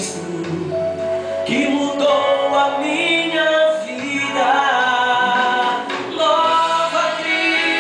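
A man singing a gospel song into a handheld microphone, amplified through the church's loudspeakers, with long held notes that waver and slide in pitch.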